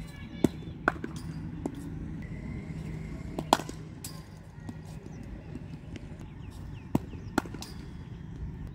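Cricket ball thrown down to a batsman in the nets: several sharp, short cracks of the ball bouncing on the concrete pitch and meeting the bat, the loudest about three and a half seconds in.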